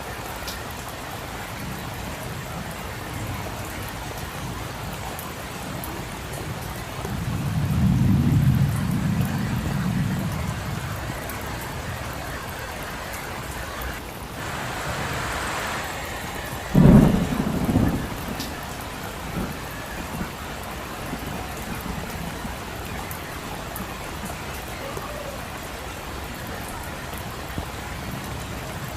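Steady rain falling. A low rumble of thunder swells and fades about seven seconds in, and a sharper, louder thunderclap breaks about two-thirds of the way through, dying away within a second or so.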